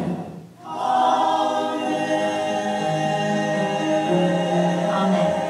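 A choir singing a cappella in long held chords, coming in about a second in after a brief pause, with the lowest voices moving to new notes a couple of times.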